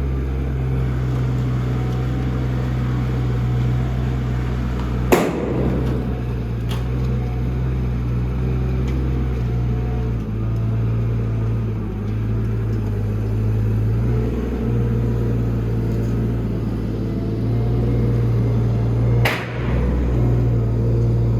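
Forklift engine running steadily with a low hum, with a sharp knock about five seconds in, a fainter one soon after, and another sharp knock near the end.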